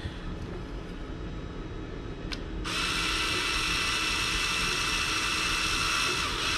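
Small cordless drill starting about two and a half seconds in and running at a steady high-pitched whine for about four seconds, boring leftover plastic out of a hole in a 3D-printed case part.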